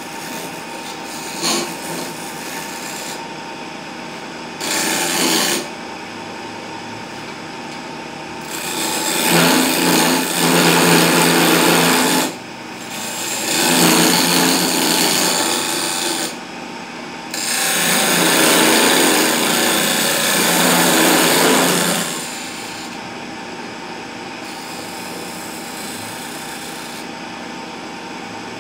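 Wood lathe running with its electric motor humming steadily, while a hand turning chisel cuts the spinning wooden spindle. The blade makes a loud scraping cut on the wood in four passes: one short, then three lasting three to four seconds each.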